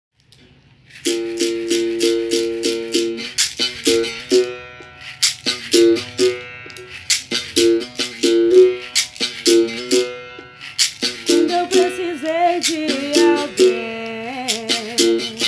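Berimbau played solo, starting about a second in: the stick strikes the steel wire in a steady repeating rhythm, its tone shifting between notes, and a caxixi rattle shakes along with the strokes.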